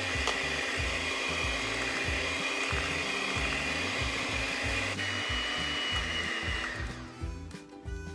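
Electric hand mixer running steadily, its twin beaters whipping egg whites and sugar into a foam; the motor stops about seven seconds in.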